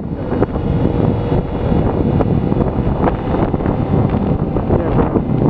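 Wind rushing over a helmet-mounted microphone on a moving motorcycle, with engine and road noise beneath it. A few short buffets of wind break through.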